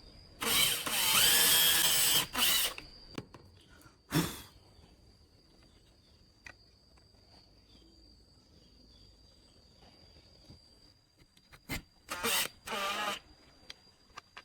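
A power tool runs in short bursts: one of about two seconds near the start, a brief one around four seconds in, and three short ones near the end. A faint, steady high whine sits underneath.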